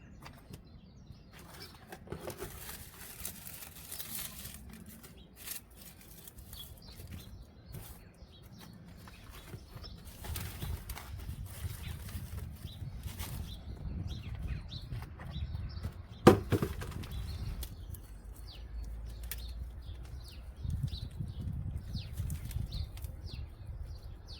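Rustling and handling noises as a potted mint is worked out of its pot and its compost and roots are handled, with scattered small clicks and one sharp knock about two-thirds of the way through. A low rumble runs underneath.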